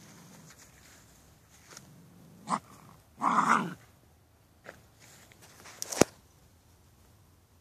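Shiba Inu dogs at play giving two short vocal sounds, a brief one about two and a half seconds in and a louder one lasting about half a second just after three seconds. A sharp click comes about six seconds in.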